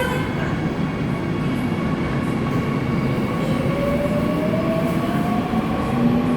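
Seoul Subway Line 2 electric train running into the station, its wheels and undercarriage making a steady rumble. About halfway through, a faint electric whine comes in and rises in pitch.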